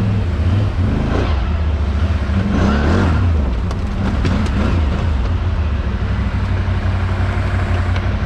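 ATV quad engine running, revving up and down in the first few seconds and then holding steady.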